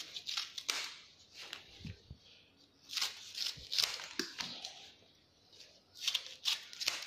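Scissors snipping the tips off folded banana-leaf packets, with the crisp rustle and crackle of the sun-dried leaves being handled: a series of short, sharp snips and crackles, with a brief lull about five seconds in.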